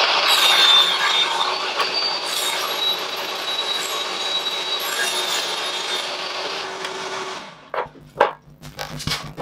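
Bosch table saw ripping a strip of plywood along the fence, a dense cutting noise with a steady high whine. The sound stops abruptly about seven and a half seconds in, followed by a few short knocks.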